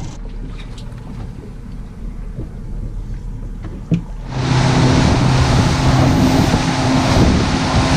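A low, quieter rumble with a sharp click about four seconds in. Then a motorboat gets under way, its engine note steady beneath a loud rush of water and wind.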